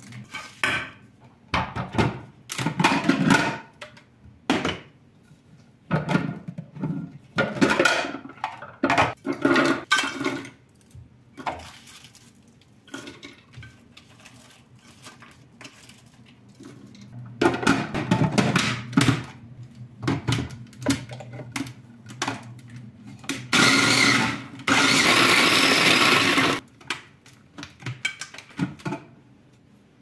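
Dried stale bread breaking and crumbling by hand, in irregular bursts of crackling and crunching, with pieces falling onto a metal tray. Near the end there is one loud, steady rushing noise lasting about three seconds.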